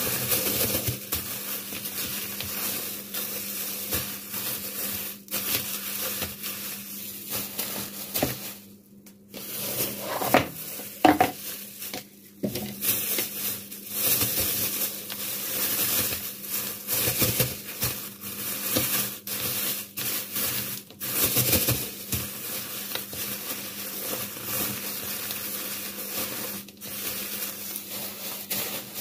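Kitchen handling noise: dishes and utensils clattering, with scraping and rustling and scattered knocks, over a steady low hum.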